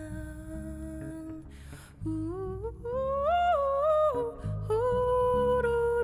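Wordless humming of long held notes that glide up and down between pitches, growing louder about halfway through, over a low electric-guitar accompaniment.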